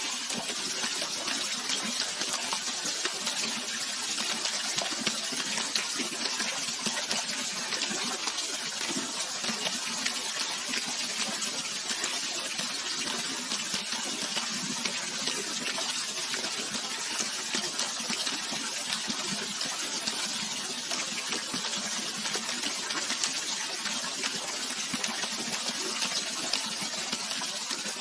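Running natural water, a steady rushing and splashing with a bright hiss and fine crackle of droplets.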